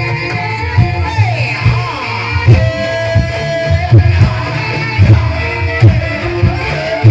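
Banyumasan gamelan playing live ebeg dance music: ringing struck metal tones over regular deep kendang drum beats, with a voice gliding up and down over it.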